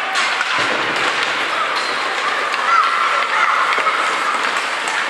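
Ice hockey play in a rink: skates scraping on the ice and sticks knocking, with a knock about half a second in and a drawn-out shout near three seconds in.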